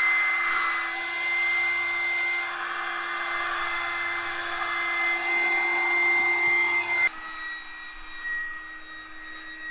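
Electric air pump running with a steady whine, pressed to the valve of an inflatable pool to fill its last air chamber. About seven seconds in it abruptly gets quieter and slightly lower in pitch, then keeps running.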